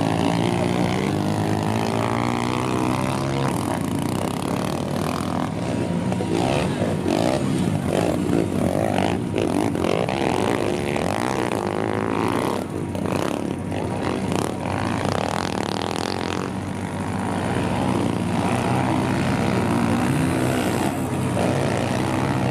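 Several 140cc pit bike engines racing, revving up and falling back as the bikes take the turns and jumps, their pitches overlapping.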